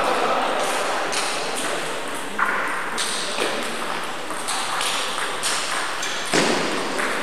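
Table tennis ball clicking off the paddles and table: a few scattered hits, then a rally from about three seconds in with a click roughly every half second, over a steady hiss.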